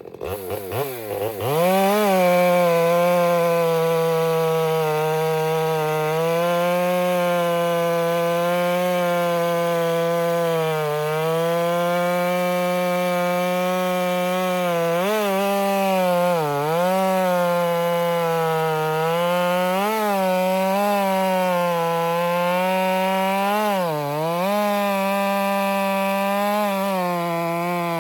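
Ported Stihl MS 462 two-stroke chainsaw with a 28-inch bar, revved up sharply from low speed in the first two seconds, then held at full throttle while cutting through wet spruce. The engine pitch dips briefly several times as the chain is loaded in the cut, then recovers.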